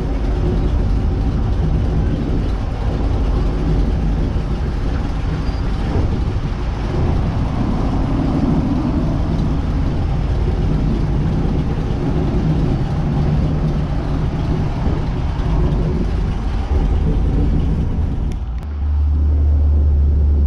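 Airboat engine and propeller running, a loud steady drone. Near the end the sound becomes deeper and duller.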